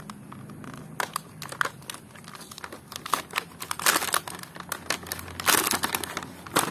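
Crinkling clear plastic toy packaging and its card backing being handled and pulled open by hand, a run of small crackles with louder rustles about four and five and a half seconds in.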